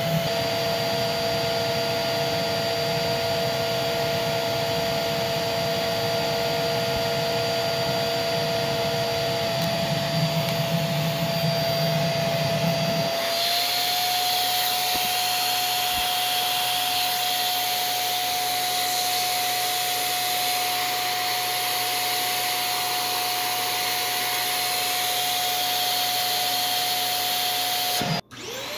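Shark Multivac NH15 vacuum running steadily with a motor whine and rushing air at the hose. About halfway through, the whine steps up slightly in pitch and the sound turns hissier, which is the motor unloading as the hose end is sealed against a vacuum gauge for the sealed-suction reading. The sound cuts out briefly near the end.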